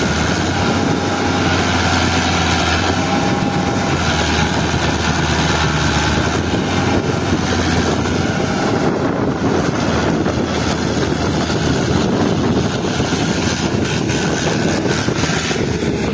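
Fiat 640 tractor's four-cylinder diesel engine running hard and steadily under heavy load, its rear wheels sunk in deep mud while it drags a felled tree trunk.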